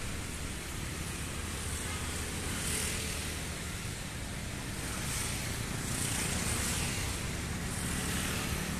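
Steady road traffic noise: a continuous low rumble with a few swells of hiss from passing vehicles.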